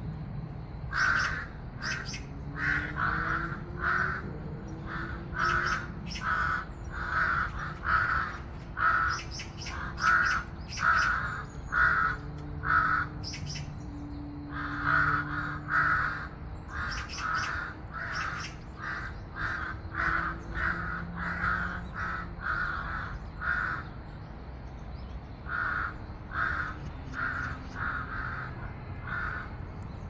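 Crows cawing over and over, loud harsh caws about two a second, with a short break late on: the alarm calling of crows mobbing a marten.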